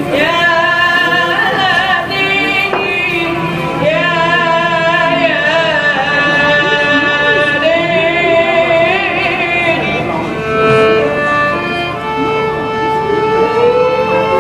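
Egyptian-style belly-dance music playing, a melody of long held notes that waver, with a singing or string-like quality.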